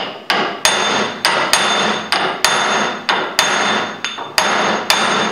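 A hammer tapping a brass drift held against a gear that is lightly press-fitted on a South Bend 10K lathe's lead screw, to drive the gear off the shaft. The taps are steady and even, about three a second, each with a short metallic ring.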